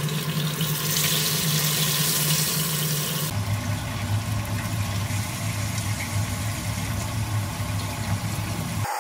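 Water running from a tap into a sink: a steady rush with a low hum underneath. The sound changes abruptly about a third of the way in, and the hum drops lower.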